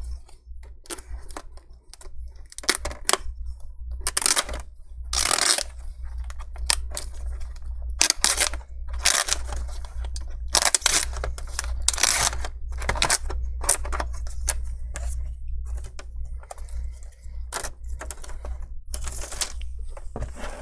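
Plastic laptop screen bezel being pried off with a metal pry tool: a run of irregular clicks and snaps mixed with longer scraping and peeling noises as the double-sided adhesive tape holding the bezel to the screen is cut through and pulled apart. A steady low hum runs underneath.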